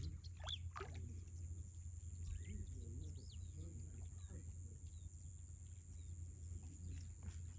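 Faint, distant voices and a few short bird chirps over a steady low hum.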